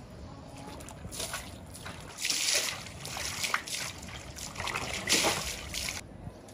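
Water splashing and dripping as chunks of raw beef are pulled out of a large aluminium pot of water. The splashes come in irregular bursts, loudest about two seconds in and again about five seconds in, and stop just before the end.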